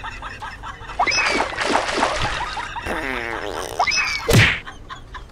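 Comedy sound effects: short descending whistle glides followed by a sharp, loud whack about four seconds in.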